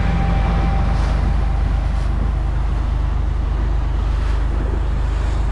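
Boat under way at speed: a steady low engine drone, with water rushing along the hull and wind buffeting the microphone.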